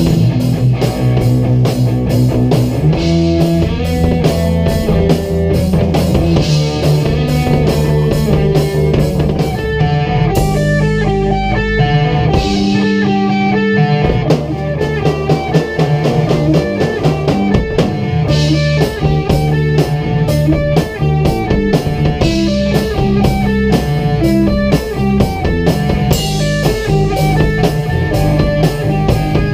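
A rock band jams live in the room: a drum kit keeps a steady beat under bass guitar and electric guitar. The cymbals drop out for a few seconds about ten seconds in, then come back.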